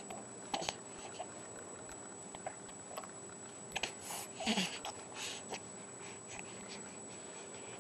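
Baby sucking and gnawing on its own fist: scattered small wet clicks and smacks, with a short grunt that falls in pitch just past halfway.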